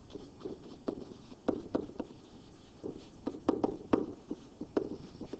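Stylus tapping and scratching on a digital writing surface while words are handwritten: a string of irregular sharp taps, a few each second.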